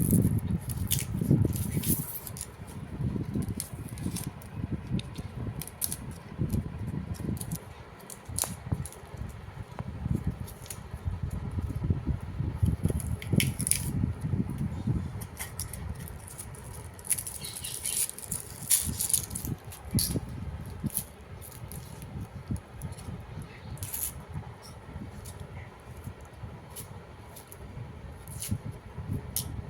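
Irregular taps, clicks and rustling of hands-on kitchen preparation work, with low rumbling handling noise.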